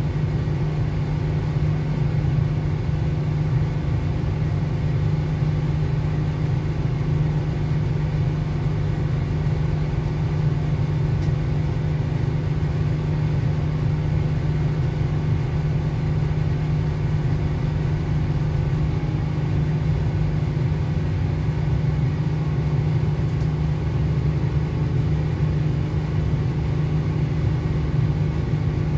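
Inside a Northern Ireland Railways Class 4000 (C4K) diesel multiple unit running at speed: the steady rumble of the train's diesel engine and its wheels on the track, with a constant low drone and no change in pace.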